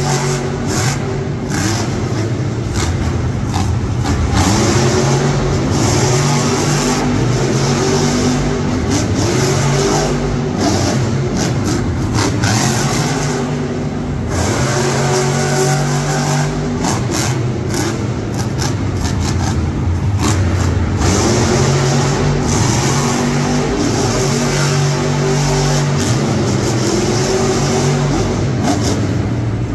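Monster truck's supercharged V8 engine revving hard, over and over, its pitch rising and falling every second or two. Loud and unbroken.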